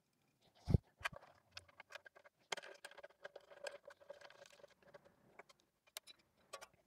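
Handling noise of an antenna matching box and its aluminium mounting bracket being fitted against a metal antenna mast: one dull thump about a second in, then a run of light clicks, taps and rustling of metal parts.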